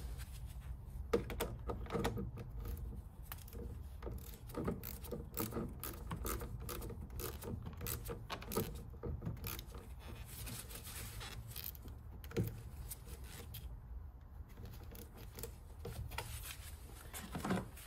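Socket ratchet clicking in short irregular runs, with small metal clinks, as the negative terminal clamp is tightened onto a car battery post.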